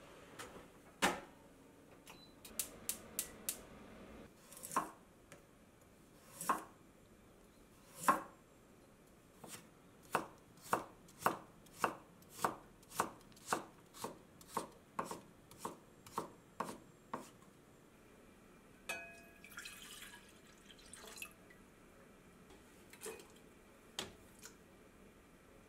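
Chef's knife chopping carrot on a wooden cutting board: a few separate knocks, then a steady run of strokes about two a second. A short hiss follows later, then a couple more knocks.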